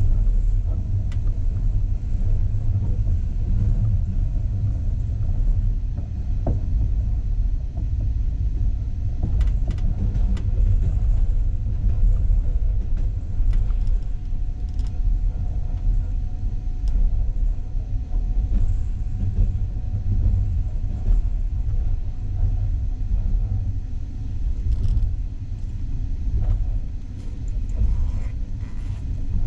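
Steady low rumble of a moving passenger train heard from inside the carriage, with a few faint clicks and rattles scattered through it.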